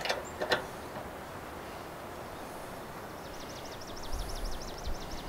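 Two sharp metallic clicks as an Allen key works the bottom refrigerant service valve of a mini-split outdoor unit. From about three seconds in, a bird trills: a rapid run of short, high, falling notes, about eight a second.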